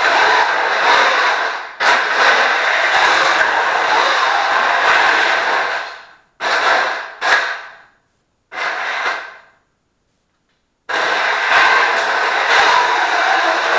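Electric drive motors and freshly rebuilt gearboxes of a small wheeled combat robot running as it drives across a concrete floor. The steady running breaks off about six seconds in into three short spurts, stops for about a second, then picks up again.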